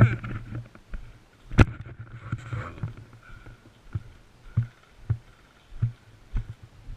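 Dull thumps, about two a second from midway on, with one sharp crack about a second and a half in and a brief faint voice after it.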